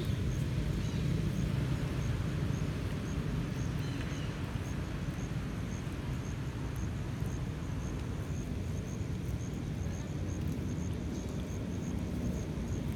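Steady low outdoor background rumble, with a faint, regular high chirp repeating about every half second.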